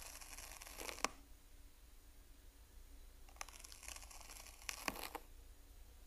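Faint crackling and rustling in two bursts, the first about a second long and the second nearly two seconds, each with a few sharp clicks, as a land snail crawls over grass blades and soil.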